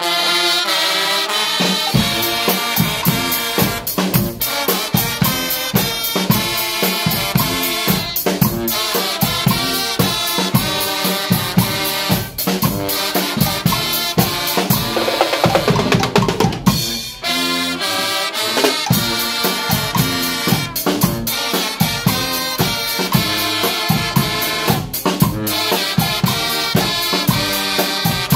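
Guggenmusik brass band playing loudly: trumpets and trombones blaring a tune over a drum kit with cymbals and a big bass drum keeping a steady beat. It strikes up at full volume right at the start.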